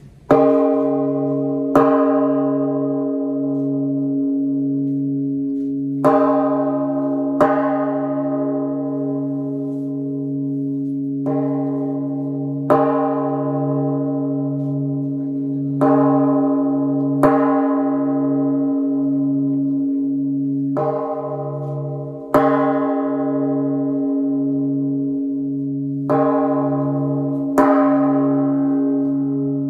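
Large bronze temple bell struck with a wooden mallet, twelve strokes in pairs about a second and a half apart, a new pair every four to five seconds. Each stroke rings on over a low hum that throbs slowly.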